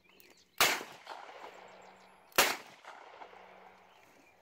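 Two revolver shots fired outdoors, about two seconds apart. Each is a sharp crack with a short fading tail.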